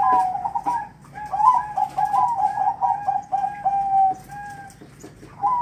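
Male zebra dove (perkutut) singing its cooing song, calling to a female: runs of short, quick coo notes, a brief phrase at the start, then a long one from about a second in, with another beginning near the end.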